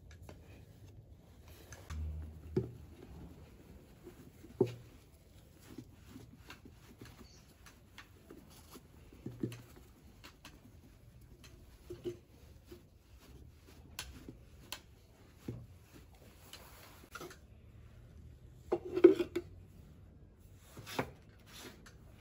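Scattered light taps, knocks and rubbing from hands and a steel spatula pattern working moulding sand and parting powder in a wooden casting flask, with a louder short run of knocks late on.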